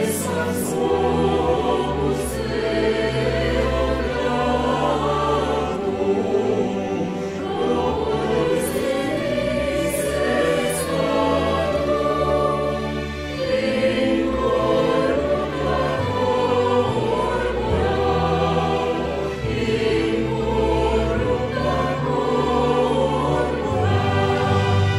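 Choir singing a traditional Latin hymn with orchestral accompaniment, in sustained chords over low notes that change every second or two.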